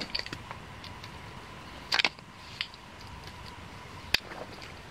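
Scattered light clicks and knocks, with a louder knock about two seconds in and a sharp single click near the end.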